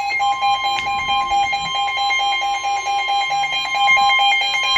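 Weather radio alert: a rapid beeping alarm together with the steady single-pitch NWS warning alarm tone. The tone signals that a warning broadcast, here a severe thunderstorm warning, is about to follow.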